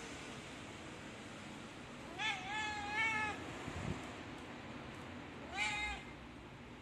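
Domestic cat meowing twice: a long meow about two seconds in, then a shorter one near the end.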